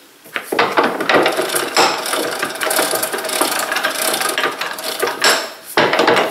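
Veritas twin-screw bench vise being cranked open by its handle, its two chain-linked screws spinning with a continuous rattling chatter. It pauses briefly near the end and then starts again.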